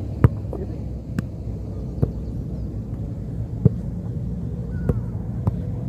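A soccer ball being passed back and forth in the air: about seven sharp thuds of foot or head on the ball at uneven intervals, over a steady low rumble.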